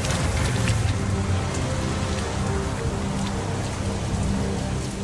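Heavy rain pouring down onto wet pavement, a dense steady hiss, with a low, steady musical drone underneath.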